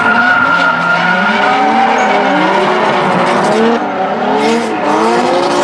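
Two drift cars sliding in tandem, their engines revving up and down while the tires squeal and skid.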